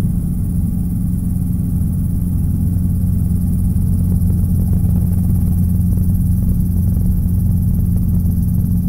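Robinson R22 helicopter's rotor and piston engine running in a low hover-taxi, a steady low drone heard inside the cockpit.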